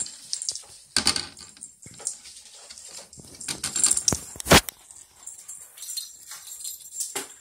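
Uneven knocks, taps and rustling as a small Yorkie puppy is handled and scrambles on a towel against a wire-mesh pen, the loudest knocks about one second and about four and a half seconds in.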